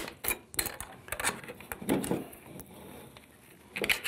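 Steel snap ring being pried out of its groove in a 68RFE transmission's clutch drum with a pick: a run of light metallic clicks and scrapes, with a louder cluster of clicks near the end.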